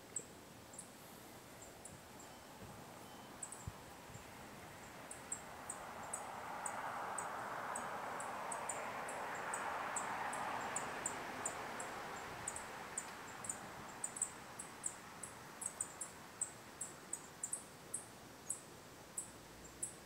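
Insect chirps: short, high-pitched clicks repeating at an irregular pace that quickens in the second half. Under them, a soft rushing sound swells in the middle and fades away.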